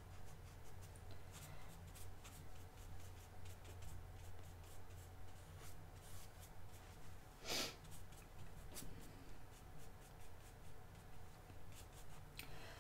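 Faint scratching and dabbing of a paintbrush laying gouache on watercolor paper, in many short strokes, with one louder brief rush of noise a little past halfway, over a low steady hum.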